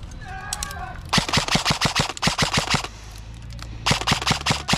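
Airsoft electric rifle firing on full auto: a long burst of rapid, evenly spaced shots, a pause of about a second, then a shorter burst near the end.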